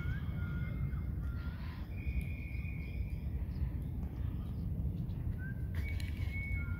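Wind rumbling on the microphone, with faint high bird calls now and then: short rising notes and one held note about two seconds in.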